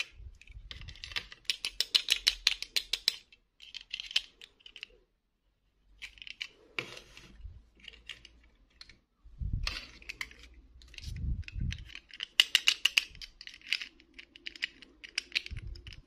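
Small plastic Disney princess dolls and their clip-on plastic dresses clicking and rattling as they are handled, with dresses pulled off and a doll pushed into a dress, in quick runs of clicks. A few dull thumps as pieces are set down on the table.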